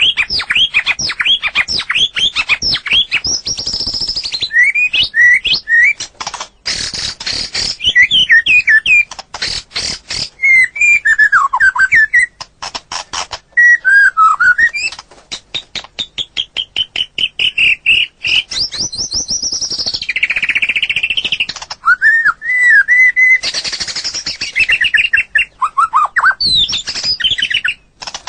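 White-rumped shama (murai batu) singing a continuous, varied song: clear whistled phrases that glide up and down, alternating with long runs of rapid rattling clicks.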